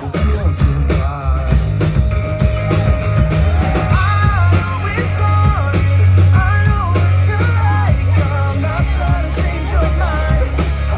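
A rock band playing live with a singer: loud bass and drums under bending sung vocal lines.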